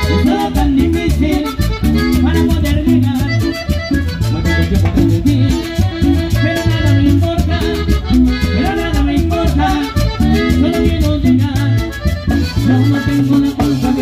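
Live Latin dance band playing, led by a piano accordion over electric bass, acoustic guitar, a metal güiro scraped in a steady rhythm, and a snare drum.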